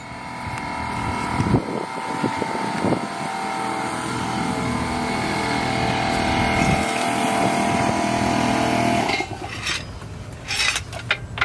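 A motor runs with a steady, even hum that grows slightly louder and stops abruptly about nine seconds in, followed by a few scattered knocks and clicks.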